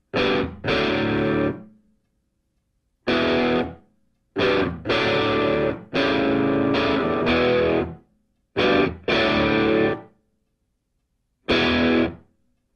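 Background music: distorted electric guitar chords played in short stop-start stabs, each cut off abruptly into silence.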